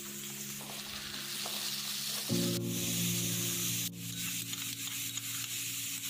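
Chopped onions sizzling in hot oil in a wok, stirred with a flat spatula that gives a few sharp scrapes or taps, under soft background music of held chords.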